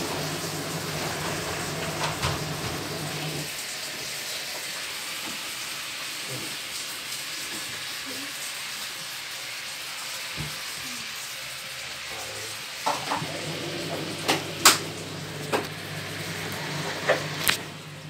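Front-loading washing machine in its wash cycle: the drum motor hums as the wet laundry tumbles with a swishing hiss, falls quiet for several seconds a few seconds in as the drum pauses between turns, then starts up again. A series of sharp clicks and knocks comes near the end, the loudest about two-thirds of the way through.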